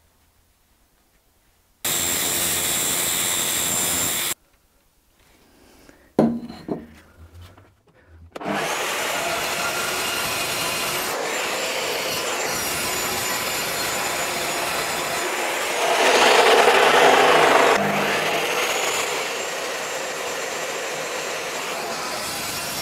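A power tool cutting steel stock: a short steady cut that stops abruptly, a few knocks and clicks of the workpiece being handled, then a long continuous cut that grows louder for about two seconds past the middle.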